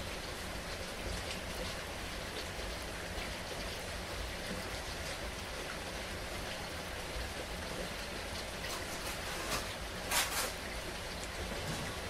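Steady heavy rain falling, a constant hiss with scattered drop taps and a brief louder splash about ten seconds in.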